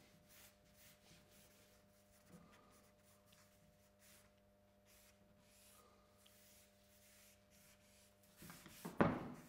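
A drawing stick scratching and sweeping across a large sheet of paper on an easel in faint, irregular strokes, with a louder, quick stroke near the end.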